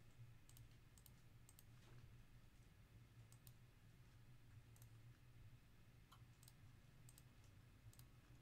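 Near silence broken by faint, scattered clicks of a computer mouse, some in quick pairs, over a low steady electrical hum.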